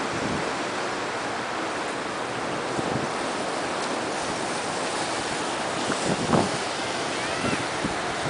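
Ocean surf washing steadily, with wind gusting on the microphone.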